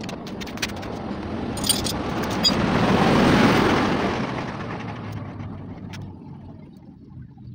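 A road vehicle passing by: its noise swells to a peak about three seconds in, then fades away. A few light clicks in the first two seconds.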